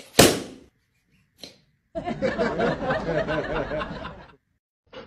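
A sharp smack just after the start, then about two seconds of a person laughing in quick, repeated chuckles.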